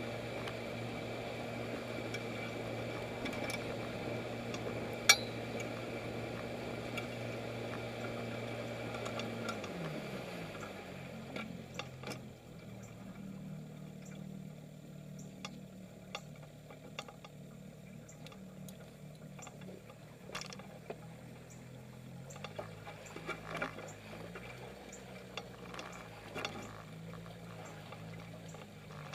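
1971 Evinrude 6 hp two-stroke twin outboard running at a steady cruising speed, then throttled back about ten seconds in to a slower, lower, quieter running speed. Water slaps and trickles against the jon boat's hull as it slows, and a single sharp knock comes about five seconds in.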